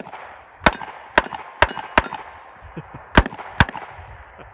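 Glock 19 Gen 4 9mm pistol firing six shots: four in quick succession about half a second apart, then a pause of a little over a second and two more shots close together.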